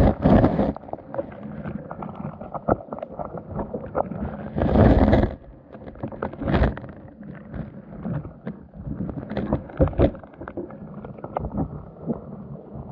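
Underwater sound picked up through a waterproof camera housing: water surging past, with a low rumble and many scattered clicks and knocks. Louder rushes come just after the start and about five seconds in.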